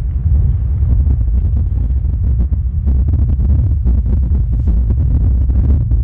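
Wind buffeting the microphone: a loud, uneven low rumble with gusty crackles, with no steady tone.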